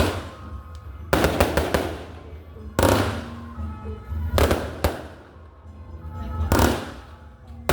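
Fireworks and firecrackers going off in repeated volleys: clusters of sharp bangs with crackle, one cluster about every one and a half to two seconds, each dying away quickly.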